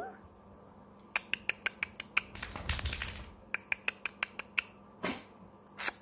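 A pet conure clicking with its beak and tongue: two quick runs of sharp clicks, about five or six a second, with a short rustle between them and a few single clicks near the end.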